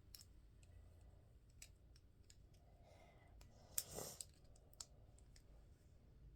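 Faint clicks of plastic Lego pieces being handled and pressed into place, with one louder handling noise about four seconds in.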